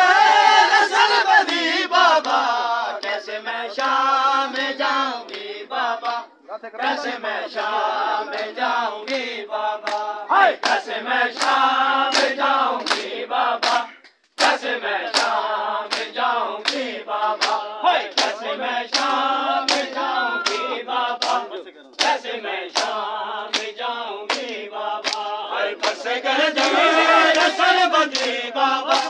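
Men chanting together in Shia Muharram matam. From about ten seconds in until near the end, open-hand slaps on bare chests land in time with the chant, about twice a second.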